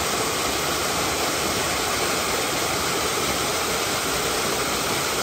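Small waterfall pouring over rock, a steady, loud rush of water heard close up.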